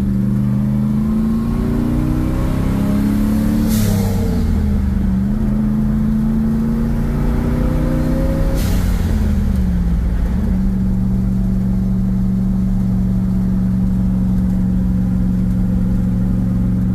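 Turbocharged LS V8 of a 1969 Camaro pulling through the gears, heard from inside the cabin. The pitch climbs, drops with a brief rush of noise at a gear change about 4 seconds in, and climbs again to a second shift near 8.5 seconds. The engine then settles into a steady cruise.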